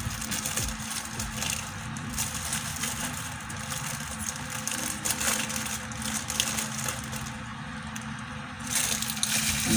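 Close-up eating sounds: food being chewed, with the crinkling of a paper napkin wiped across the mouth, a run of many small crackles and clicks.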